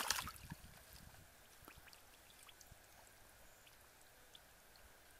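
A short splash of muddy water right at the start, then faint drips and small water sounds from hands working in a shallow muddy pool.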